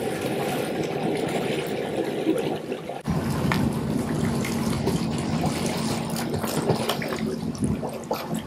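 Churning, rushing pool water driven by a tethered jet ski's pump jet, with swimmers splashing through it. The sound changes abruptly about three seconds in, and a steady low hum runs under the water noise from then on.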